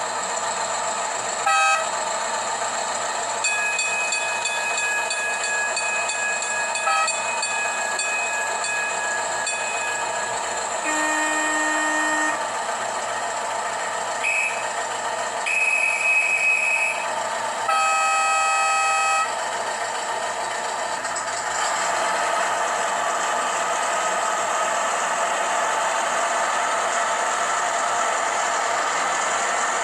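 Digital sound module in a model VW vehicle, its small speaker playing a steady engine-running sound. Several horn toots of different pitches are played over it: a short one about a second and a half in, then longer ones between about eleven and nineteen seconds in.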